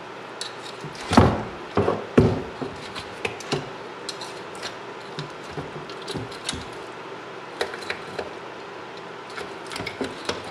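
Knife cutting and scraping meat off the jaw of a boiled bear skull in a sink: irregular clicks and knocks, with the loudest knocks at about one and two seconds in.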